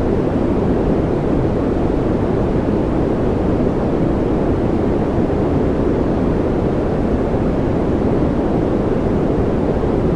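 Steady, unchanging noise of the kind played for focus and sleep, a deep rushing hiss with most of its weight in the low end and little treble.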